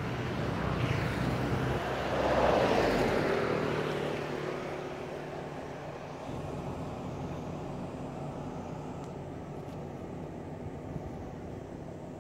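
A motor vehicle passing, its engine and road noise swelling to a peak about two and a half seconds in and fading away over the next few seconds, leaving a steady low background hum.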